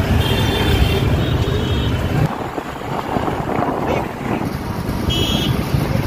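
Street traffic and vehicle engines heard from a moving vehicle, with heavy wind rumble on the microphone that drops away about two seconds in. Short high tones come a few times over the traffic.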